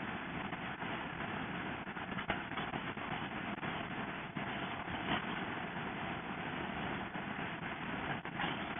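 Steady rush of wind and road noise from a motorcycle travelling at highway speed, about 76 mph, with brief louder buffets about two and five seconds in.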